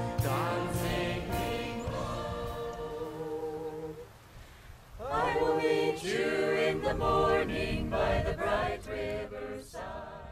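Unaccompanied choir singing a slow hymn in long held notes. The singing drops away about four seconds in and a new phrase starts a second later, then fades near the end.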